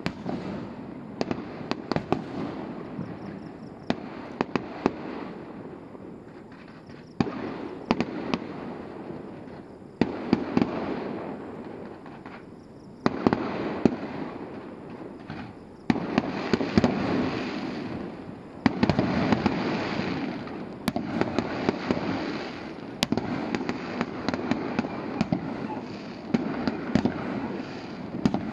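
Fireworks going off in a continuous barrage: many sharp bangs over a dense, steady din, with a new volley breaking in suddenly every three seconds or so.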